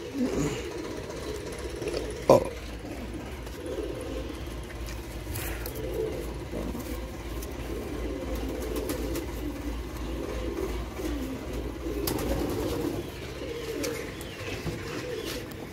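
Domestic pigeons cooing, several voices overlapping, with one sharp knock about two seconds in.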